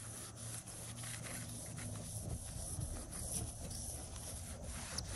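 Faint rubbing of an acetone-dampened paper towel wiped back and forth across a tile, over a low steady hum.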